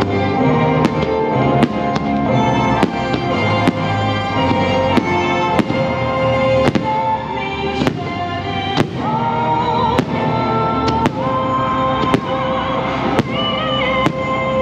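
Fireworks going off in repeated sharp bangs, roughly one a second, over the fireworks show's music soundtrack.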